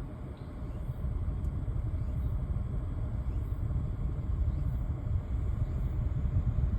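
Mazda CX-60 running with a steady low rumble that gets a little louder about a second in. The owner reports it as an abnormal noise from the transmission.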